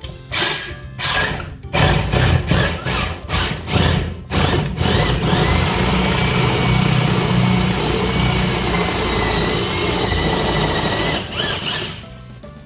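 Power drill run in a string of short trigger bursts, then held on steadily for about six seconds before it stops.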